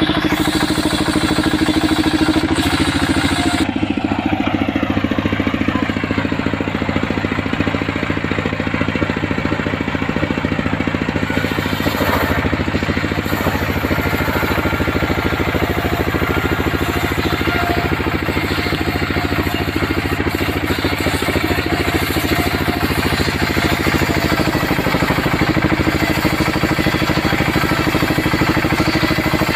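Engine-driven homemade circular sawmill running steadily while its blade rips through coconut-wood timber. The machine's steady note sinks about four seconds in, as the blade takes the cut, and comes back up near the end.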